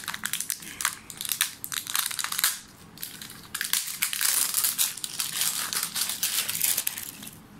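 Thin plastic packaging crinkling and crackling as hands work at it around a conditioner bottle, in two long stretches with a short lull about three seconds in.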